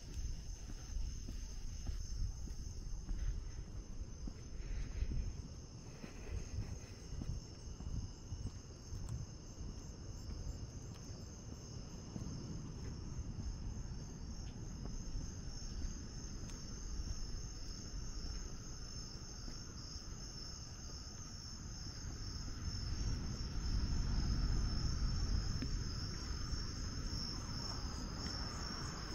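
Chorus of night insects trilling steadily in a high, pulsing band, several of them at slightly different pitches. Beneath it runs a low rumbling noise that swells for a few seconds near the end.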